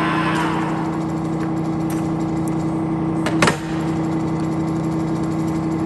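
Monarch geared-head engine lathe headstock running, its drive hum steady while the higher gear noise dies away over the first second. About three and a half seconds in, a sharp clunk with a brief falling whine as a speed-change lever is shifted, and the headstock runs on at the new speed.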